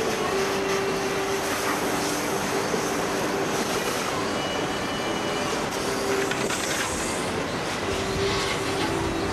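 Garden hose spraying water onto cars, a steady rushing hiss.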